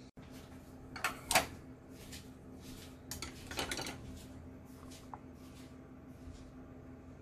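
Ceramic dishes being handled on a countertop: a few sharp clinks and knocks about a second in, the loudest, and another cluster about three and a half seconds in, over a faint steady hum.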